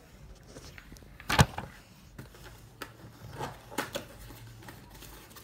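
Scattered knocks and clicks of objects being handled and set down, the loudest a single sharp knock about a second and a half in, followed by a few lighter clicks.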